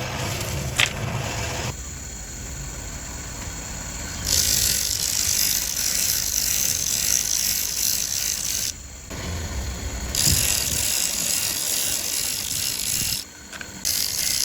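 A workshop power tool working bone for button blanks, making a loud, high hissing noise that starts about four seconds in and stops and restarts twice.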